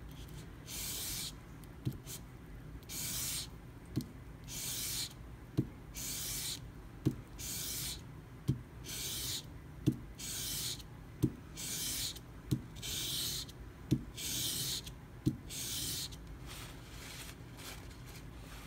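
Steel knife blade drawn backwards flat across coarse sandpaper (400–500 grit) in about a dozen even strokes, roughly one every second and a half. Each stroke is a short dry scratchy hiss, with a light tap between strokes. The strokes fade near the end. This is edge-trailing on sandpaper, laying a satin scratch pattern on a convex bevel.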